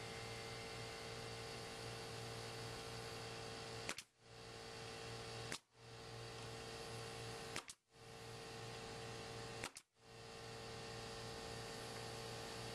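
Steady electrical hum and hiss with a constant mid-pitched tone, broken four times by a sharp click followed by a brief dropout that fades back in.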